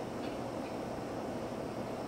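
Steady low rumble of outdoor background noise, with a few faint, short high chirps.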